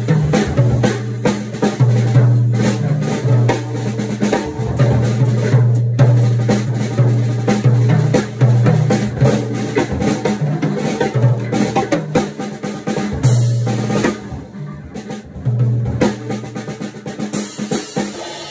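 Drum kit played with sticks in a fast jazz drum solo: dense snare and tom strokes with bass drum and cymbals, the toms ringing. The playing drops to a softer stretch for a few seconds near the end before building again.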